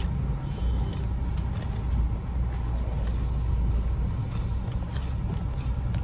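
Steady low rumble of a car's engine and road noise, heard from inside the car.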